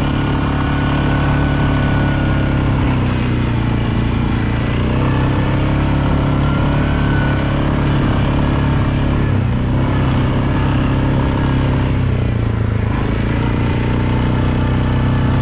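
ATV engine running steadily while riding a trail, its pitch rising and falling slightly with the throttle.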